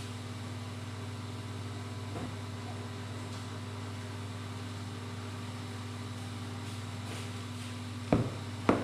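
A steady low mechanical hum, with two short sharp sounds about half a second apart near the end.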